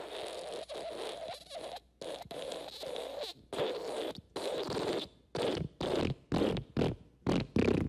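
Fart sound effect: a few long raspy blasts of a second or two each, then a string of short sputtering bursts that come quicker and shorter toward the end.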